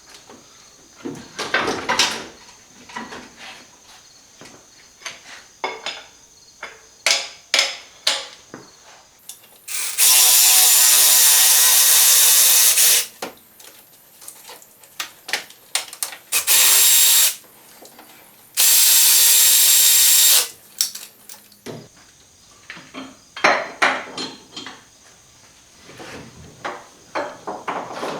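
A power tool runs at a steady pitch in three bursts near the middle, one long, one short and one medium, amid scattered clicks and clanks of metal tools being handled.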